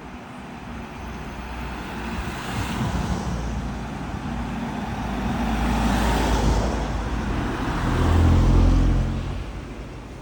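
A motor vehicle driving past close by. Engine and tyre noise swell over several seconds, a deep engine hum is loudest about eight to nine seconds in, and then the sound fades away.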